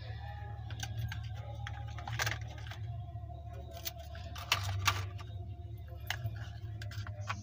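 Scattered sharp clicks and clinks of metal hand tools working on the spark plugs of a Suzuki F6A engine, over a steady low hum.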